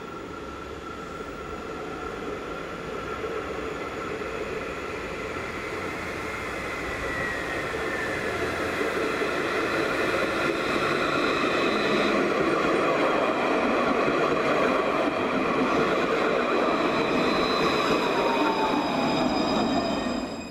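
Alstom Citadis 402 Luas tram approaching and running past on its rails, the running noise growing louder over the first half and then holding. High whining tones ride over it and fall in pitch a few times, most clearly near the end, where the sound cuts off abruptly.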